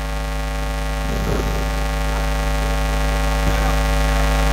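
Loud, steady electrical mains hum with many buzzing overtones, growing slowly louder.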